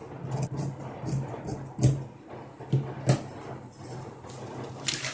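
Tailor's scissors cutting through cloth laid under a newspaper pattern, the blades crunching through the fabric with two sharp clicks about two and three seconds in. Newspaper rustles near the end.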